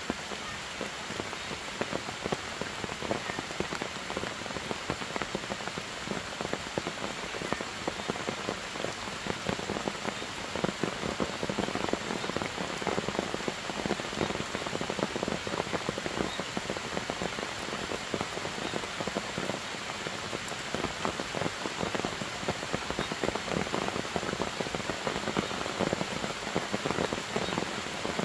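Steady rain falling on forest foliage and ground, a constant dense patter of many drops.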